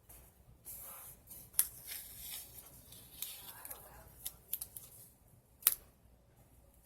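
Paper being handled and cut with scissors: rustling, snipping and several sharp clicks, the two loudest about a second and a half in and near the end.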